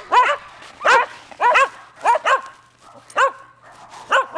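Shetland sheepdog barking in a run of short, high-pitched barks, about one burst a second, some in quick pairs.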